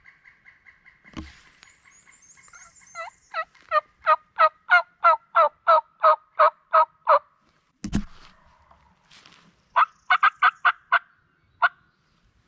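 Wild turkey calling: a long string of about fourteen loud, descending yelp-like notes at about three a second, a single thump, then a quicker rattling run of about seven notes.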